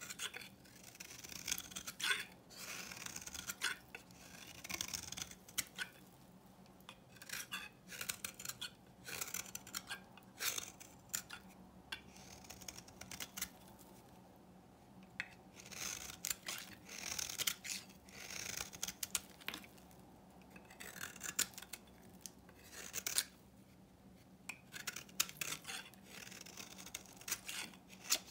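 A knife shaving flakes off an old, dry bar of soap: crisp scraping strokes in quick runs, with brief pauses between them.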